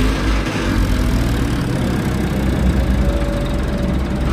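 Diesel engine of a JCB excavator running steadily at a constant speed, with a faint steady whine over it in the second half.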